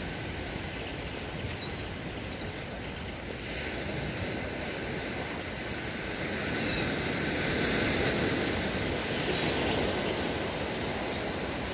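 Surf washing onto a sandy beach as a steady rush that swells louder about eight seconds in, with a few faint short high chirps.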